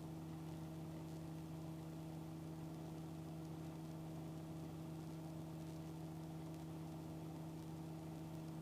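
Faint steady hum on the helicopter's intercom audio feed, a few unchanging tones with light hiss and no other events.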